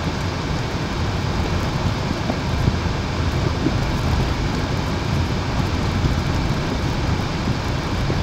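Steady low rumble of a car's engine and tyres heard from inside the cabin, driving over a stone-paved street.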